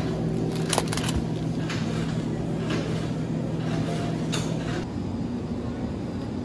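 Steady low hum of a supermarket's refrigerated meat display case, with a few sharp crinkles and clicks from a plastic-wrapped foam tray of beef being handled, about a second in and again a little past the middle.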